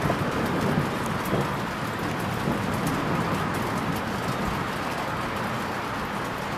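Steady rain falling, an even hiss with scattered drips ticking throughout.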